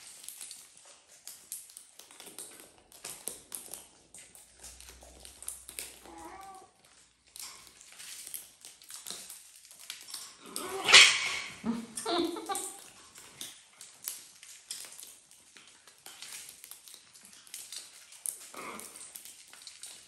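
Macaws and a cockatoo picking and cracking seed from a metal tray: a constant scatter of small clicks and taps. A loud, short animal call sounds about eleven seconds in, with fainter calls a little before and near the end.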